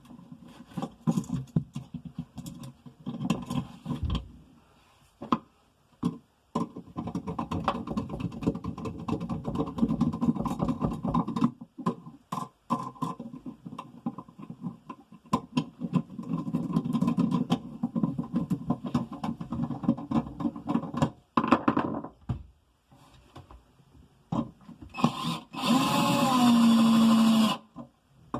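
Electrical wires and an outlet being handled and pushed into an outlet box: irregular scraping, rustling and clicks. Near the end a small motor whirs steadily for about three seconds.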